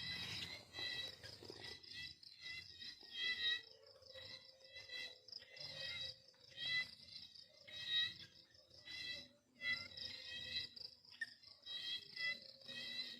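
Crickets chirping in short, repeated high chirps, a few per second.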